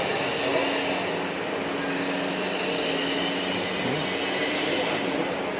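Heavy machinery running steadily: a continuous mechanical hum with a steady low drone under it.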